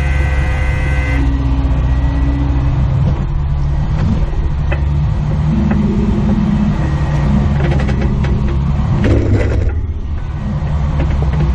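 Jeep engine running steadily at low crawling speed, with a few scattered clicks.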